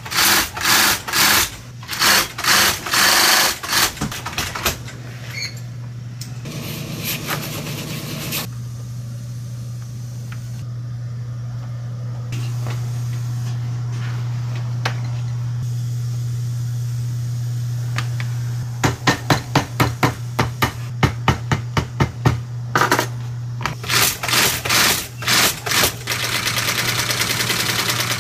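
Industrial sewing machine stitching a hiking-boot upper in rapid runs, with a steady low hum in the long pause between runs. About two-thirds in it stitches again in short bursts, then in one fast, steady run.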